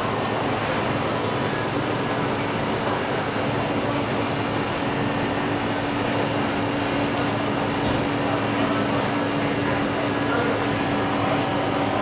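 Steady hum and whoosh of shop refrigeration and ventilation machinery running, with a faint low steady tone that comes in about three seconds in and fades out near the end.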